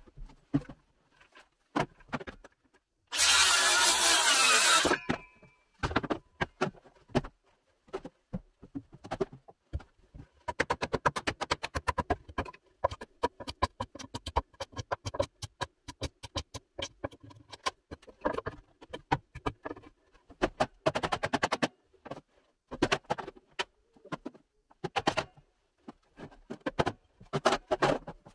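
A Makita cordless circular saw makes a short cut through a wooden board about three seconds in, lasting under two seconds, its blade whine dying away as it stops. This is followed by long runs of rapid hammer knocks on a wooden board, and scattered knocks and clatter of boards being handled near the end.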